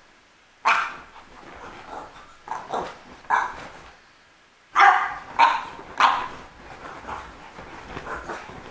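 French bulldog puppy barking in play, about six short, sharp barks in two bunches, then softer scuffling as it scrambles over the bedsheet.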